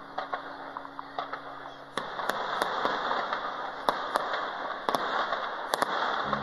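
Aerial fireworks shells bursting: a few scattered sharp reports at first, then from about two seconds in a louder, denser run of pops and crackles.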